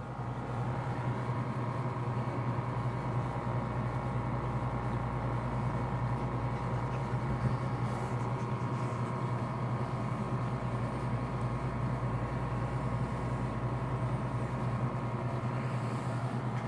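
Steady hum of a running electric appliance motor: a low drone with fainter steady higher tones above it.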